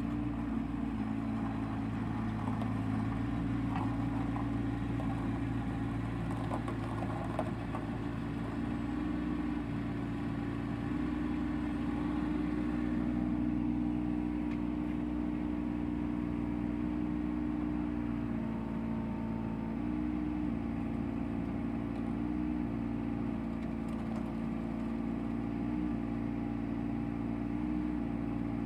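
Bobcat 418 mini excavator's diesel engine running steadily as the machine tracks across gravel and works its boom and bucket. The engine note dips briefly a few times in the last ten seconds.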